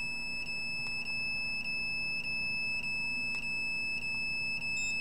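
A high-pitched electronic alarm tone from a handheld meter. It is almost continuous, with a brief break about every 0.6 seconds.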